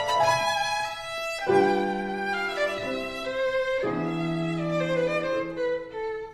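Instrumental background music with long held notes that change in pitch.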